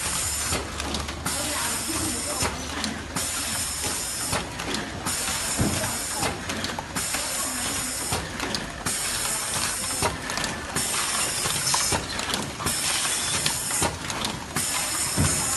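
Toothpaste cartoning machine running: a steady hiss broken by short regular dropouts in a cycle about every two seconds, over mechanical clatter.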